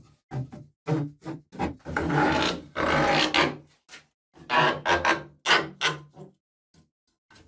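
Irregular scraping and rubbing in a string of short bursts with silent gaps between, the longest lasting about a second and a half near the middle.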